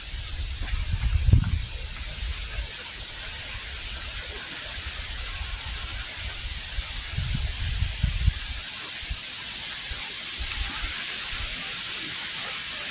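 Steady hiss of falling rain, with brief low rumbles on the microphone about a second in and again around seven to eight seconds in.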